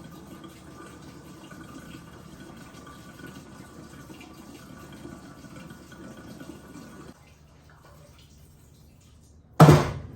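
Gasoline pouring from a can into the car's fuel tank, a steady gurgling fill that stops abruptly about seven seconds in. Near the end comes a single loud clunk.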